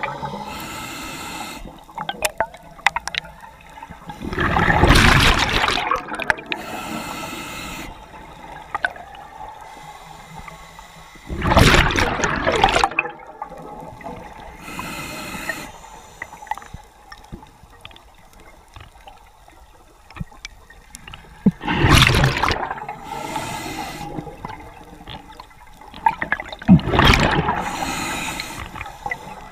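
Scuba diver breathing through a regulator underwater: four loud rushes of exhaled bubbles, each followed a second or so later by the fainter hiss of an inhalation.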